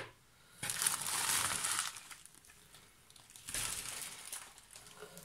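Plastic bag crinkling in two bursts as a bag of bead packets is lifted out of a cardboard box.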